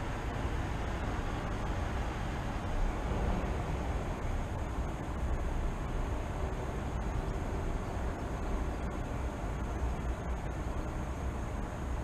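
Steady outdoor city ambience: a constant low rumble of distant traffic under an even hiss, with a faint high steady tone.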